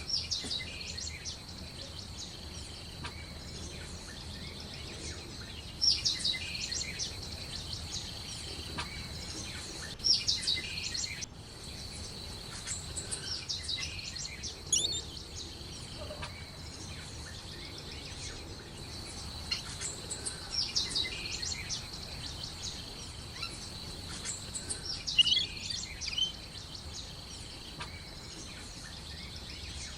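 Birds chirping in short clusters of calls every few seconds, over a steady high-pitched whine.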